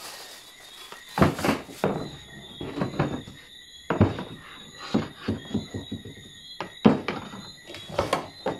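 Irregular knocks and thumps of white PVC drawer-face panels and wooden drawer parts being handled and set down, a dozen or so hits at uneven spacing, the sharpest about a second in and near seven seconds in.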